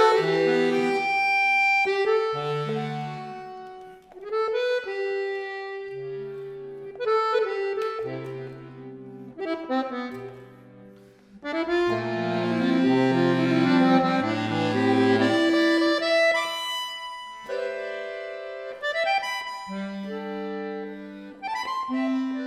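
Chromatic button accordion playing a slow instrumental passage of held chords over a moving line of low notes. The phrases thin out about 4 and 11 seconds in, and the playing is at its fullest just after the middle.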